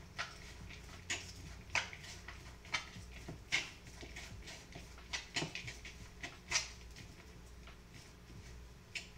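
Utensils tapping and clicking against a mixing bowl as coleslaw is tossed: a dozen or so short, light knocks at irregular intervals, about one every half second to second.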